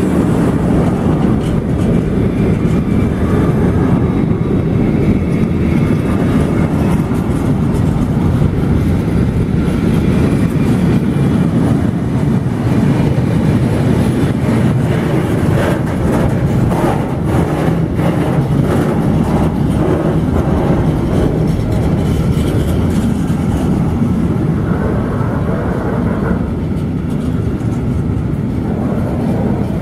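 Freight train of container and tank-container wagons passing close, a steady loud rumble of wheels on rail with scattered clicks as the wheels cross rail joints.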